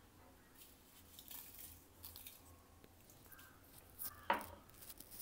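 Faint scraping and rustling as salt is scooped from a glass jar and sprinkled over raw chicken in a steel bowl, with a sharper clink about four seconds in.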